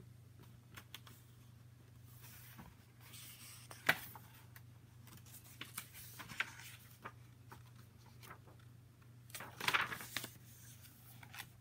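Paper pages of a hardcover picture book being handled and turned: soft rustles and small clicks, with the loudest rustle from a page turning about ten seconds in. A faint steady low hum sits underneath.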